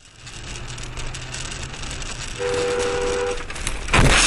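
Driving noise inside a car, then a two-tone car horn sounding for about a second, followed near the end by the loud crash of a collision.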